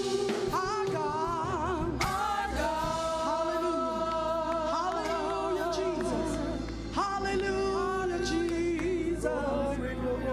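Gospel worship song: singers holding long, wavering notes with vibrato over steady instrumental accompaniment.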